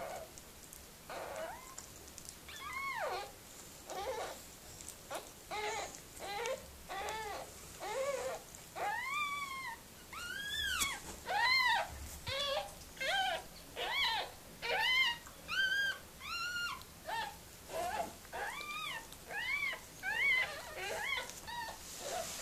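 Newborn puppies crying: a run of short, high squeals, about one a second, each rising and then falling in pitch.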